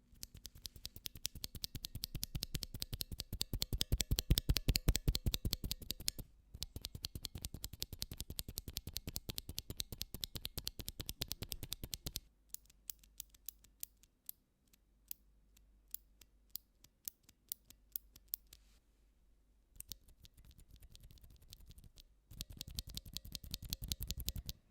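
Typing on a Redragon K530 60% mechanical keyboard with tactile brown Outemu switches: fast, continuous key clatter, then a run of separate single key presses in the middle, and fast typing again near the end.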